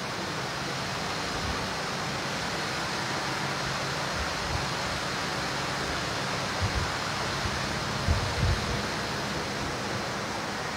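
Steady hiss of room noise with no voice, broken by a few soft low bumps in the second half.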